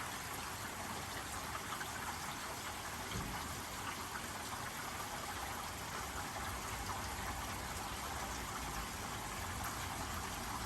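Steady rain falling in a minor storm, a dense, even hiss of many drops.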